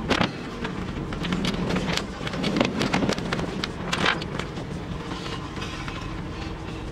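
Knocks and clatter of a sailboat's sliding companionway hatch being lifted and handled, with a sharp knock just after the start and another about four seconds in, over a steady background rumble.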